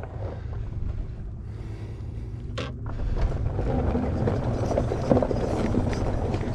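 Christini electric ATV riding over desert dirt and rock: its tires rumble and crunch on the ground, with wind on the microphone, and the hub-motor drive itself is nearly silent. The rumble gets louder about three seconds in.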